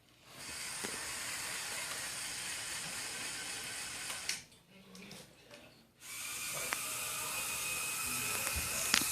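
Lego Power Functions M motor whirring as it drives the truck's jacks through two worm gears. It runs steadily for about four seconds, stops for about a second and a half, then runs again.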